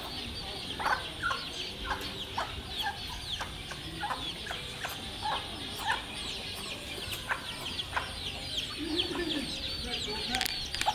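A flock of chickens feeding, with a constant stream of short, high, falling peeps and scattered clucks, and one lower cluck about nine seconds in.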